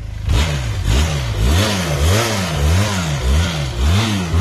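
Benelli TRK 502's parallel-twin engine, stationary, being revved in quick repeated throttle blips. The revs rise and fall about seven times at an even pace, a little under two blips a second.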